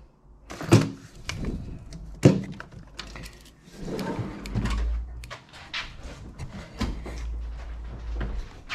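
Metal tool chest drawers sliding open and shut, with tools clattering inside them as they are rummaged through: a run of knocks, clicks and rattles.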